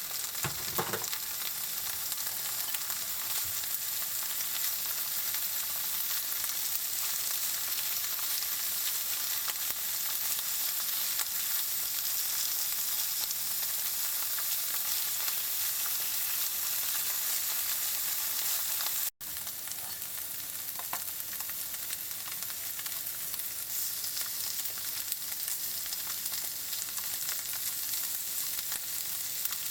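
Slices of fried tofu sizzling steadily in sesame oil in a frying pan as they fry to golden. The sizzle drops out for an instant about two-thirds of the way through.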